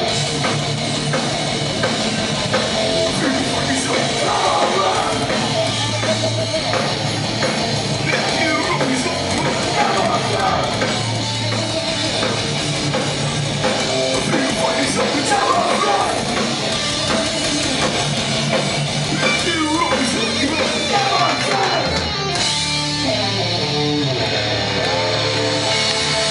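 Live hardcore punk band playing loud: distorted electric guitars, bass and drums with vocals. About 22 seconds in the drums stop and held guitar chords ring on.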